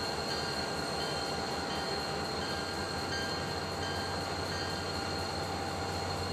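An MBTA GP40MC diesel locomotive, with its EMD 16-cylinder two-stroke engine, approaches with its commuter train, giving a steady low rumble.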